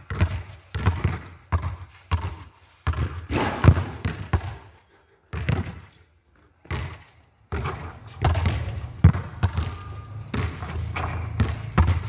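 Basketball being dribbled on a hard court: a run of repeated bounces, a pause of a second or two near the middle while the ball is held up for a shot, then more bounces.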